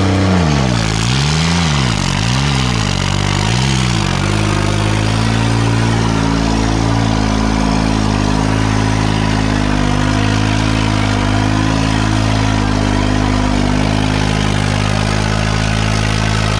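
New Holland 3630 tractor's three-cylinder diesel engine working under heavy load as it pulls an implement through the soil. In the first four seconds its speed dips and recovers about four times, then it runs steadily.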